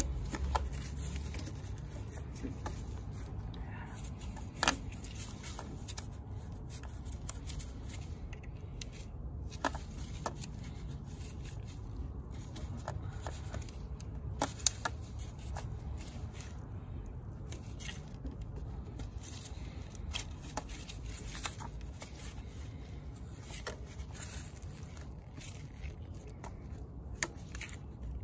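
Rubber-gloved hands working ignition coils and their plastic connectors on a car engine's valve cover: rustling and rubbing with scattered sharp clicks, over a steady low hum.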